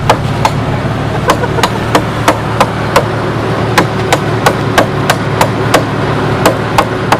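An axe chopping into a dead tree: quick, sharp strikes about three a second, in runs broken by brief pauses. A steady low hum runs underneath.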